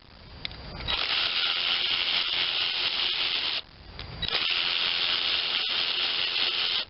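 Small power driver spinning a 1/4-inch fastener out of a lawnmower carburetor's air filter adapter. It runs steadily twice, each run a couple of seconds long with a short pause between.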